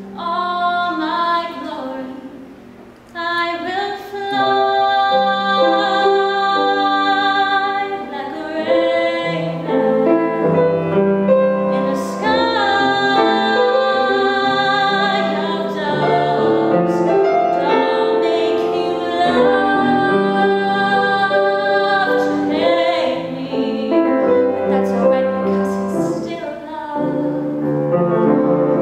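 A woman singing a musical-theatre song solo with vibrato on long held notes, accompanied by a grand piano.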